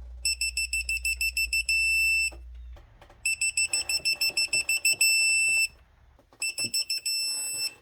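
Electronic beeping of a digital torque wrench as bolts are tightened, three times. Each run is short high beeps coming faster and faster that merge into a steady tone when the set torque or angle is reached.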